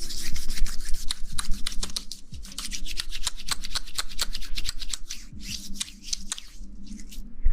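Close-miked ASMR rustling and scratching: a dense run of quick crackling strokes and rubs right at the microphone, rising and falling in loudness.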